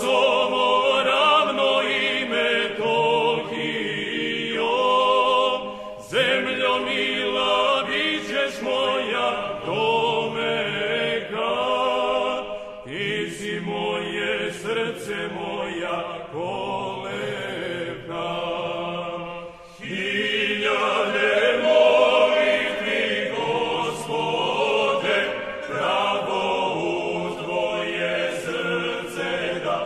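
Orthodox church chant sung by a choir in long phrases, with short breaths between phrases about 6, 13 and 20 seconds in.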